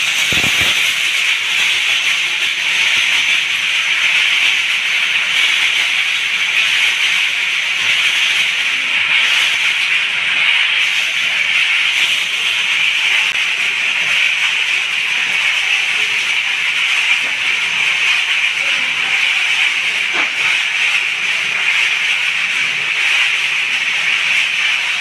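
Steady loud hissing fizz from a chemical bath as a basket of steel bolts is dipped and worked in it.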